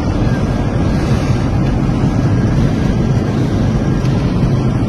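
Steady, loud roar of an airliner in flight heard from inside the passenger cabin: engine and airflow noise with a deep rumble, unbroken throughout.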